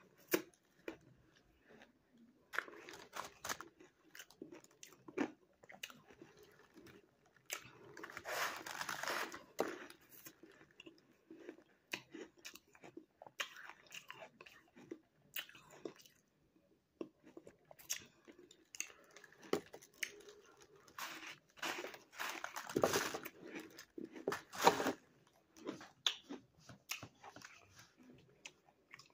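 Crunchy bites and chewing of a block of frozen ice made half with cornstarch and half plain, in irregular crunches, with louder runs of crunching about eight seconds in and again a little past twenty seconds.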